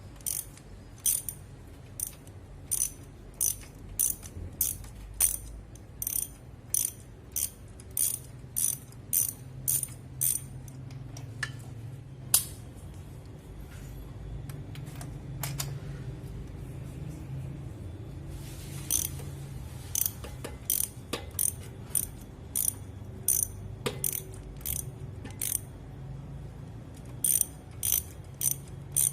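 Ratchet wrench clicking in a steady rhythm, about two clicks a second, as it backs out a car's spark plugs. It pauses for a few seconds midway and again near the end.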